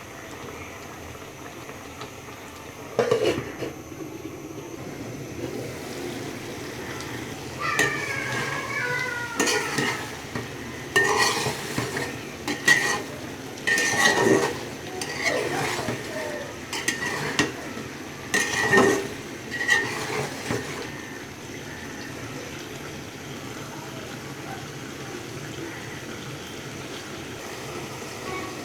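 A metal spoon or spatula stirring in a cooking pot, clinking and scraping against it in a run of sharp ringing knocks, over a steady frying hiss. The clinks come once about three seconds in, then many through the middle, and die away after that.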